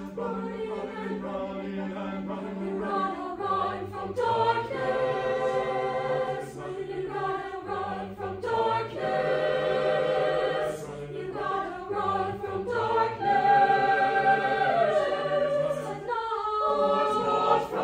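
Mixed chamber choir singing a cappella: sustained chords over a held low bass line, swelling louder in the second half.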